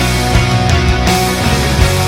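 Loud instrumental rock music with distorted electric guitar and a steady drum beat.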